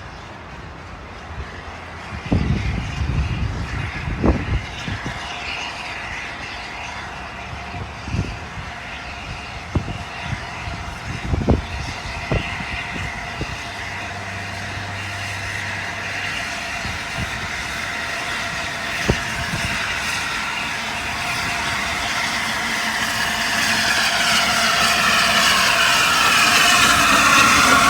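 Peppercorn A1 Pacific steam locomotive 60163 Tornado approaching, its sound growing steadily louder through the second half. A few short low thumps come in the first half.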